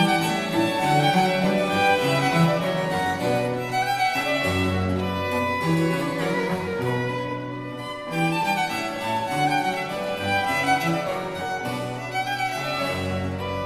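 Baroque trio sonata played live on period instruments: two violins lead over a cello bass line, with harpsichord and theorbo continuo.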